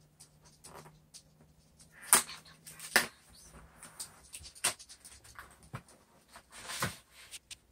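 Cardboard snack box being opened by hand: several sharp snaps and clicks as the flaps and glued tabs come apart, then a longer rustle of packaging near the end.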